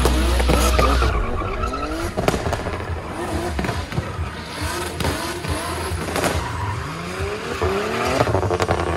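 Drift car's engine revving hard, its pitch rising again and again as the driver works the throttle through a sideways slide, with tyres squealing and a few sharp cracks.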